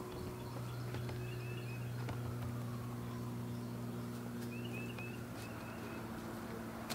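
Outdoor backyard ambience: a steady low hum from an unseen machine, a faint whine that slowly rises and falls, and faint bird chirps twice, about 1.5 s and 4.5 s in.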